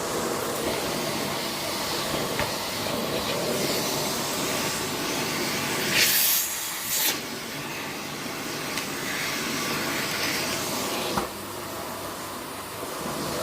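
Vacuum cleaner running with a steady hiss of suction. Two short, louder high hisses come about six and seven seconds in, and a single click near eleven seconds.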